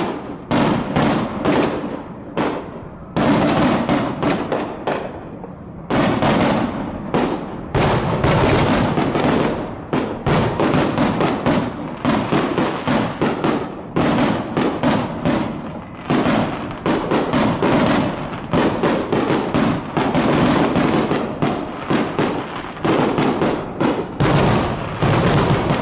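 Fireworks display: a dense run of bangs and crackling bursts, several a second, growing thicker after about six seconds.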